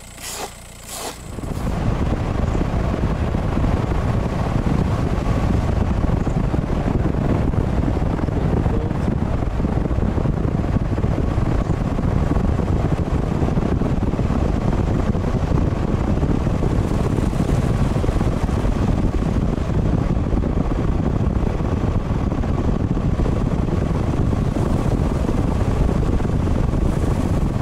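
A car driving along a snow-covered road: steady engine and tyre noise, which begins about a second and a half in after a few short sharp sounds.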